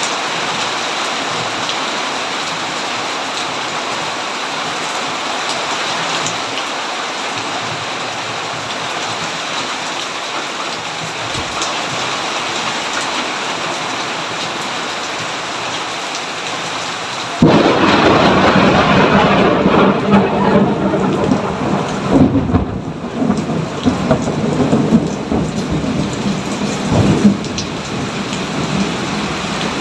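Steady rain falling. A little past halfway a sudden, loud thunderclap breaks in and rumbles on, swelling and ebbing for about ten seconds, then the rain alone goes on.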